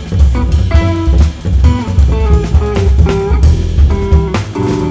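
Live jazz quartet: a Telecaster-style electric guitar plays a fast run of notes over upright bass and drum kit.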